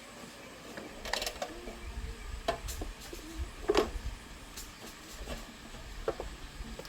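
Scattered metal clicks and knocks of hand tools and parts as a motorbike is worked on, over a low rumble, with the sharpest knocks about a second in and near the middle.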